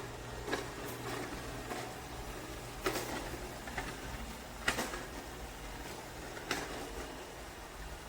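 Shark robot vacuum running with a steady low hum, with a few sharp knocks every second or two.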